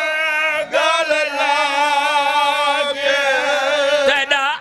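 A man chanting a Punjabi mourning elegy (a zakir's sung recitation) into a microphone, in long held notes with a wavering pitch, broken by short breaths.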